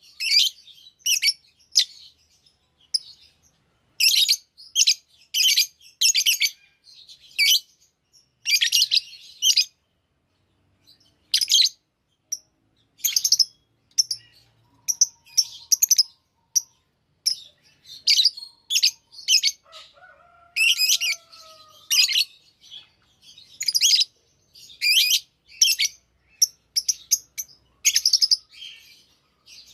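Lovebirds chirping: clusters of short, high-pitched chirps in quick runs, broken by brief pauses.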